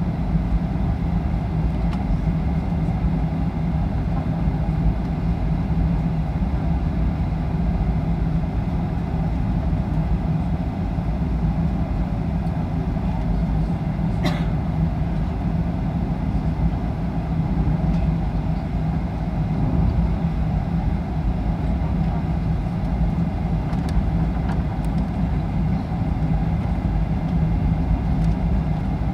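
Cabin noise of an airliner taxiing: a steady low rumble and drone from the jet engines at taxi power, heard inside the cabin by the wing. A single faint click about halfway through.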